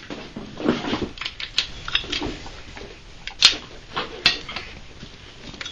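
Irregular metallic clicks and taps of hand tools on engine parts during an engine teardown, with two sharper knocks past the halfway point.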